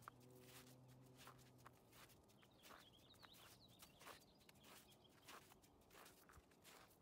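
Faint footsteps on packed, icy snow, about two crunching steps a second. A small bird chirps faintly a few times about halfway through, and a low steady hum fades out about two seconds in.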